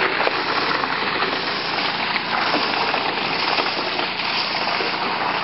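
A strong jet of water from a garden hose spraying and splashing against the side of a van. It starts abruptly and runs as a steady gush.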